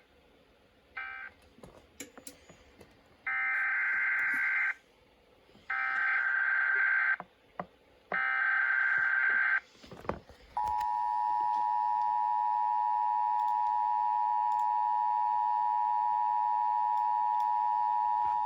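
Emergency Alert System signalling. A brief end-of-message data burst comes about a second in, then three SAME header data bursts of buzzing digital screech, each about a second and a half long. Then the steady two-tone EAS attention signal holds for about eight seconds, marking the start of a required monthly test.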